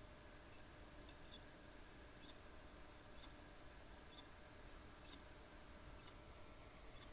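Faint, short high-pitched chirps and clicks at irregular intervals, roughly one a second, from inside an all-in-one PC, over a low steady hum. It is an abnormal noise of the kind that came before this computer broke down.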